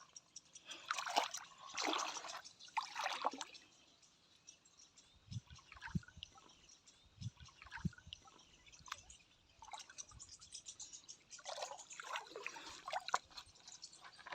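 Water splashing and trickling over toys in irregular bursts, quieter in the middle with a few soft low knocks.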